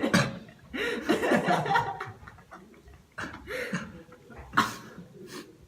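Young men chuckling and laughing in short bursts, with a short sharp breath about four and a half seconds in.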